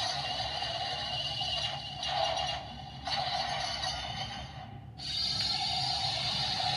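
Music with a steady sustained tone, breaking off briefly about two, three and five seconds in.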